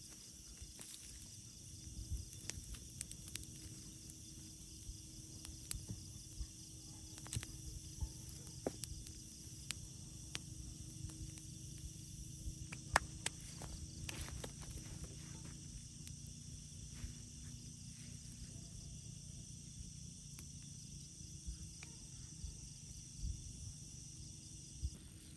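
Steady high insect chirring over quiet outdoor background, with scattered light clicks and taps; one sharper click comes about halfway through.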